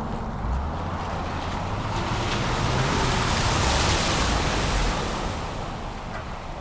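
Range Rover Sport driving through a muddy puddle: a low engine rumble under a rush of water and mud splashing off the tyres, swelling to its loudest about three to four seconds in as it passes and easing off after.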